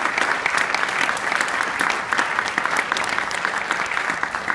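Audience applause: many people clapping together, easing off slightly near the end.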